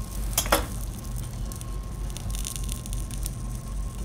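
Hot oil crackling faintly in a pan over a steady low hum, with two quick clicks about half a second in.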